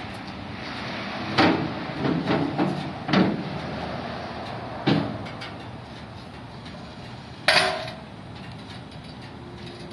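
Knocks and bangs of a metal hand truck being handled at the back of a U-Haul box truck: a run of knocks in the first few seconds, another about five seconds in, and a louder ringing metal clang about seven and a half seconds in.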